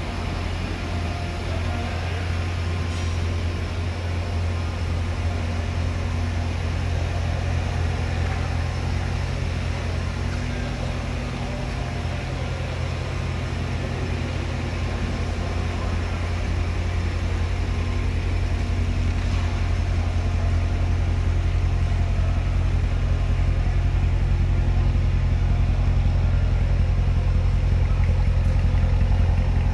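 2016 Corvette Stingray's 6.2-litre LT1 V8 idling steadily through its quad exhaust, a low even burble that grows a little louder over the last several seconds as it is heard closer to the tailpipes.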